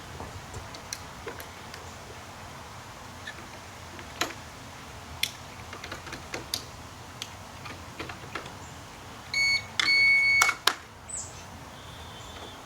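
Small scattered clicks and snaps of batteries and the battery compartment being fitted on an AmazonBasics electronic deadbolt lock. About nine seconds in, the lock gives a short beep and then a longer one, the sign that it has powered up, followed by a couple of sharper clicks.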